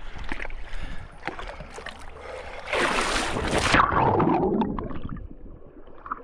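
Lake water splashing as a swimmer pushes off and starts swimming, with one loud rush of splashing about three seconds in that lasts about a second and then dies away.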